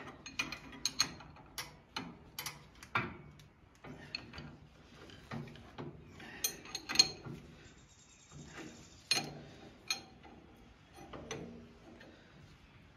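Irregular metallic clicks and knocks of a wrench working on a hydraulic hose fitting, tightening it to stop a small leak.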